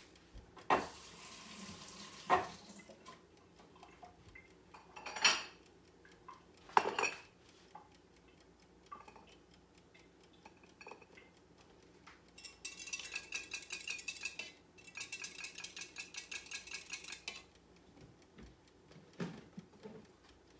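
Utensils and dishes knocking and clinking, with four sharp knocks in the first seven seconds. From about twelve seconds in, a metal utensil beats egg mixture in a glass cup for about five seconds, a rapid, even clinking.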